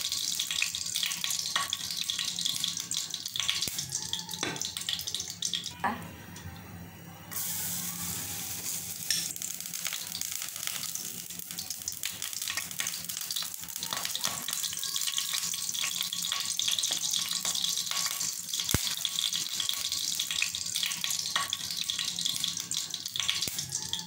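Chopped garlic frying in oil in a nonstick wok: a steady sizzle with scattered clicks and scrapes of a spatula stirring. The sizzle drops away about six seconds in and comes back sharply about a second later.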